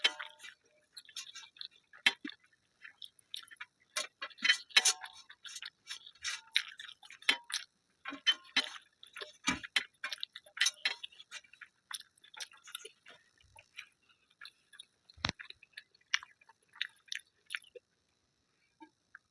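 Close-miked chewing and mouth sounds of someone eating: a run of short, irregular clicks and smacks that thins out in the last couple of seconds.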